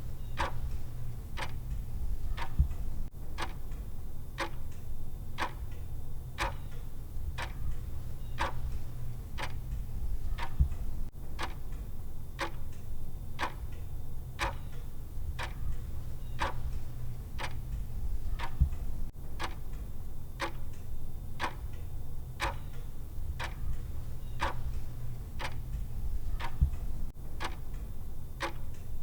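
Clock ticking of a countdown timer: sharp, evenly spaced ticks a little more than one per second, over a steady low hum.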